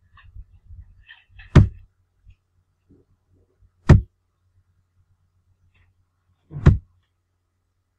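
Three sharp knocks, two to three seconds apart, over a faint low hum, with a few faint light clicks before the first knock.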